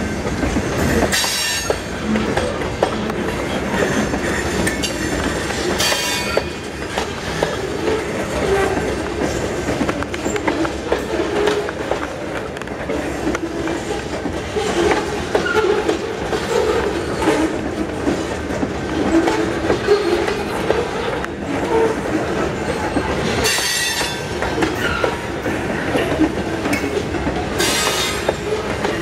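A string of loaded covered hopper cars rolling past at track side: steady rumble of steel wheels on rail with continuous clickety-clack over the rail joints. There are brief high-pitched wheel squeals four times, about a second in, around six seconds, and twice near the end.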